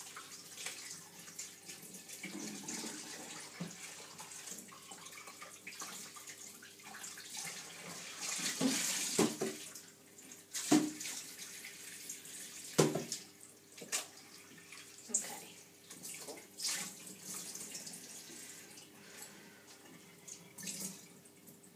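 Kitchen tap running into a sink while a raw placenta is rinsed of blood under it, the water splashing, with a louder burst of flow about eight seconds in and then several sharp knocks and splashes.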